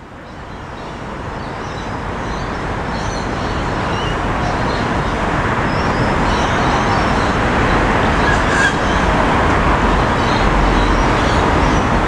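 Soundscape field recording fading in over the first few seconds: a steady hum of road traffic with small scattered bird chirps above it.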